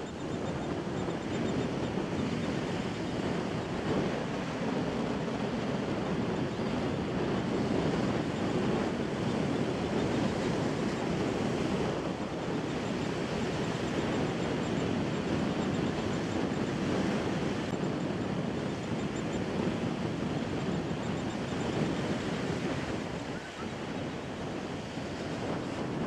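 Wind buffeting the microphone over steady surf on a beach, with faint rapid high calls from a royal tern now and then.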